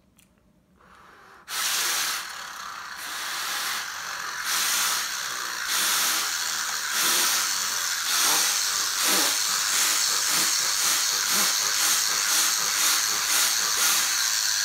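Air blown hard by mouth through a 3D-printed PLA Tesla turbine, spinning it up to about 6,500 RPM. A loud, rushing hiss starts about a second and a half in and keeps on, swelling and easing about twice a second.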